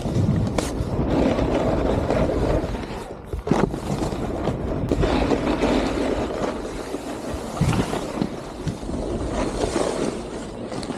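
Snowboard sliding and carving over soft snow, the edges scraping in swells, with a few sharp knocks.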